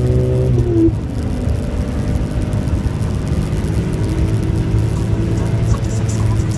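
A BMW M3 E46's straight-six engine pulling hard at high revs, heard from inside the cabin at about 175 km/h, with heavy wind and tyre noise. The engine note breaks and changes pitch briefly about half a second in, then holds steady.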